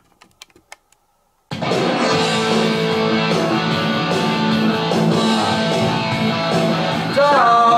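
A few faint clicks, then about a second and a half in an outro rock song with electric guitar starts suddenly at full level. A singing voice comes in near the end.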